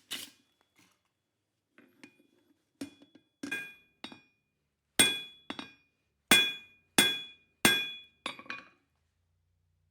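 Hammer blows on hot coil-spring steel over an anvil, each strike ringing with a metallic clang. A few light taps lead into a run of heavy, evenly paced blows about two-thirds of a second apart, ending with two quick taps.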